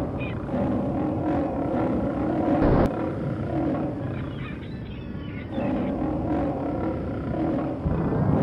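A monster roar sound effect over a low rumble, with a heavy thud a little under three seconds in.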